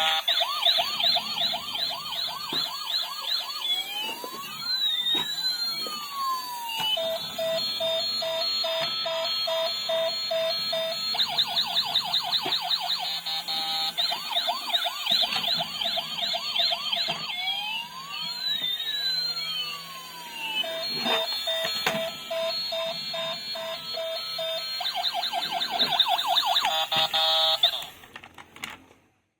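Toy emergency vehicle's electronic siren sound chip cycling through siren patterns: fast yelping sweeps, two tones gliding up and down across each other, and a steady repeated beeping. The sequence plays through twice, then cuts off suddenly near the end.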